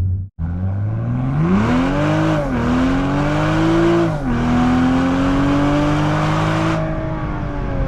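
Turbocharged 3.0-litre straight-six of a tuned 2019 Toyota Supra MK5 accelerating hard through the gears. The engine note climbs, drops sharply at upshifts about two and a half and four seconds in, and climbs again. Near the end the throttle lifts, the hiss cuts off and the note eases down.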